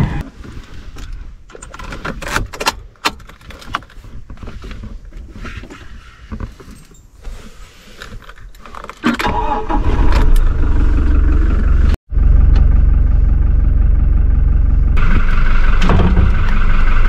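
Car keys jangling and clicking at the ignition of a Toyota, then about nine seconds in the engine is started and runs steadily at idle, its low drone the loudest sound.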